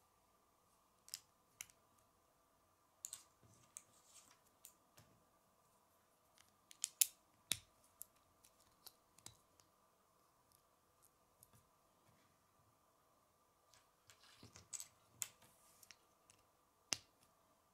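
Small plastic Lego pieces clicking and snapping together as they are handled and pressed into place: scattered sharp clicks, with a quick flurry about seven seconds in and another around fourteen to fifteen seconds.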